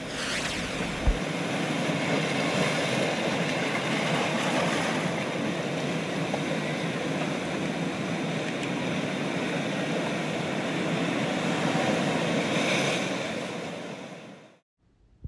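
Steady rushing noise with a short low thump about a second in, fading out shortly before the end.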